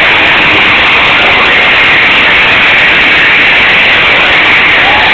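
Arena crowd cheering and screaming, heard as a steady, distorted wall of noise through an overloaded camcorder microphone.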